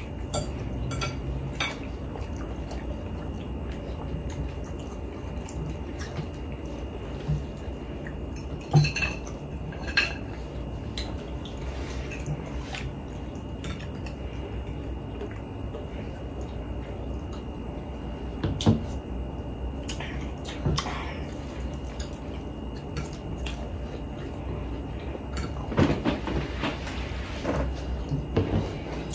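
Cutlery clinking and scraping against plates now and then as food is eaten, over a steady low hum.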